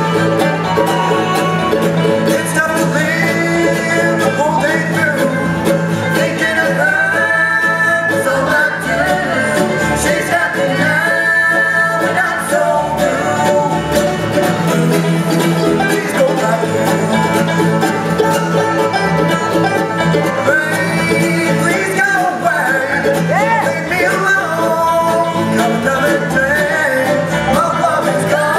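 Live bluegrass band playing a song with sung vocals, backed by mandolin, acoustic guitar, five-string banjo and upright bass.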